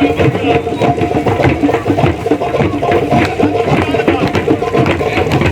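Live drumming with dense, fast strokes over a steady held tone, mixed with people's voices.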